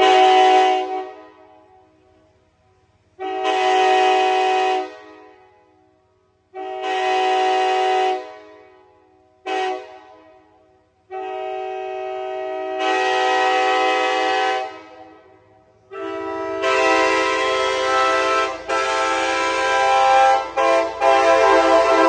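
Nathan K5LA five-chime locomotive air horn (a 1977 Amtrak FL9 "Corker" bigtag) blowing a chord in a series of blasts: the end of one blast, three long blasts, a short toot and a longer blast, then a long sounding near the end broken by brief cuts. Each blast echoes and dies away slowly inside a stone road tunnel.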